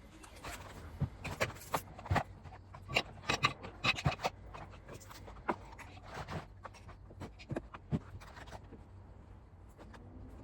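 Irregular clicks and light knocks, a few per second, like small objects being handled and set down.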